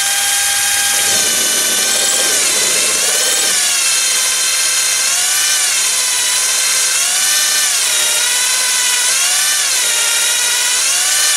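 Lathe tool-post drill boring a pilot hole through an aluminium die holder: a steady, high motor whine with a stack of overtones that dips in pitch again and again as the bit cuts.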